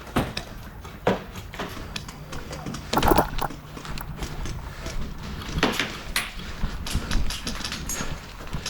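Footsteps and gear knocking as a player moves over the ground, a run of irregular thumps and clicks with a louder cluster about three seconds in.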